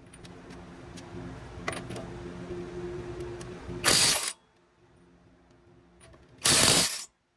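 Cordless 1/2-inch impact wrench run in reverse on lug nuts in two short, loud bursts about two and a half seconds apart, each stopping abruptly: the auto stop halting the wrench once the nut is loose. Before the first burst there is a quieter steady mechanical hum.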